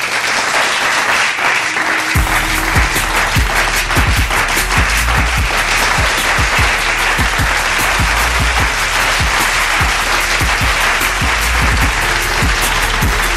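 Radio station-break music: a dense, loud track whose bass and steady drum beat come in about two seconds in.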